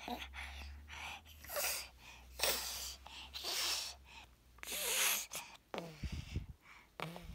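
Baby huffing and snorting close to the microphone: a series of short breathy puffs about a second apart, with a faint low rumble of the phone being handled in the first half.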